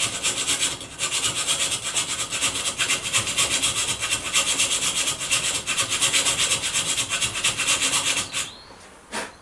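Flat needle file rasping back and forth across a slot in a metal plate held in a vise, in quick even strokes, several a second, as a row of punched holes is filed into one slot for a sliding rivet. The strokes pause briefly about a second in and stop about eight seconds in, followed by a single knock near the end.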